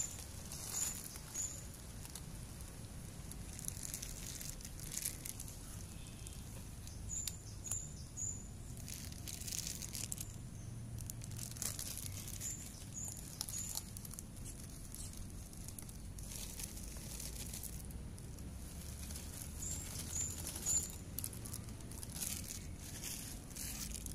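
Cats crunching dry kibble, with crinkles of a plastic bag, while a bird gives short high chirps in groups of two or three every few seconds.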